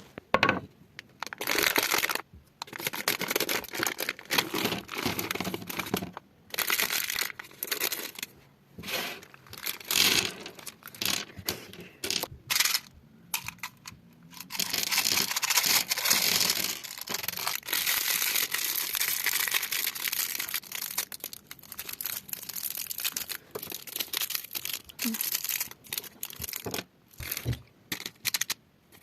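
Sweet wrappers and packaging crinkling and tearing as sweets are handled, in irregular bursts with short pauses between them and one longer stretch of continuous crinkling around the middle.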